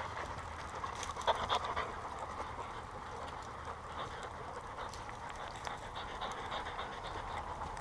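Several dogs panting steadily, with a few short clicks and scuffs a little over a second in.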